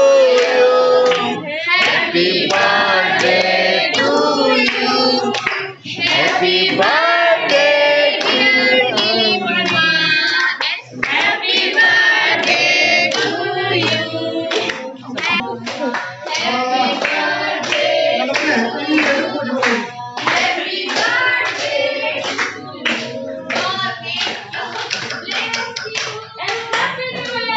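A group of people singing together, with hand-clapping along in a steady beat that grows denser about halfway through.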